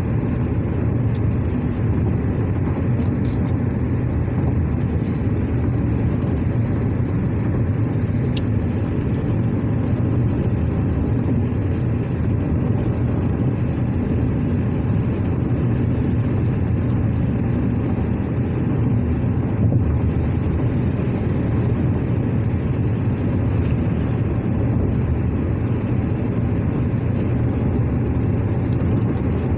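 Steady road noise heard inside a moving car's cabin: an even low rumble that does not let up.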